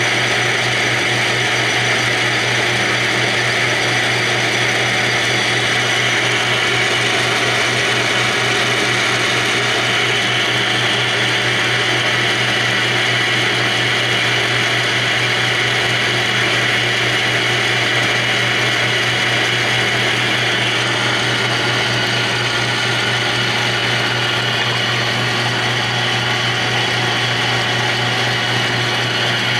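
South Bend Model A heavy 10-inch engine lathe running steadily under power: a continuous mechanical whir over a low hum with a fast, even rattle.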